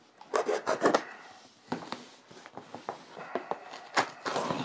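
A small knife cutting through packing tape and cardboard on a shipping box, with irregular scrapes and rustles of the cardboard and a sharp tap about four seconds in.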